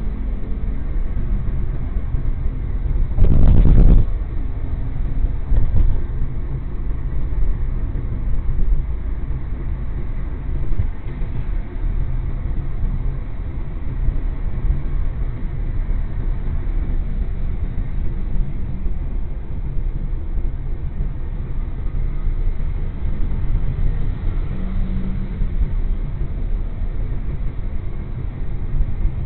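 Steady low rumble of a car driving along a city road, heard from inside the cabin. A short, loud burst of noise comes about three seconds in, and a smaller bump a couple of seconds later.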